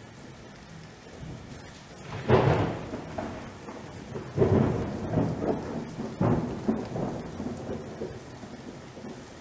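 Steady rain with three rolls of thunder, the first about two seconds in, the others near the middle, each dying away over about a second.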